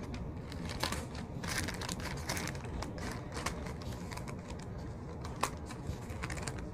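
Plastic shipping bag crinkling and rustling as it is handled, with scattered light clicks and taps, one sharper click about five and a half seconds in.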